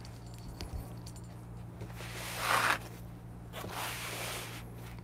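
Two soft rustles of a cloth being handled as grinder parts are laid out on it, the first a little past the middle and a fainter one near the end, over a low steady electrical hum.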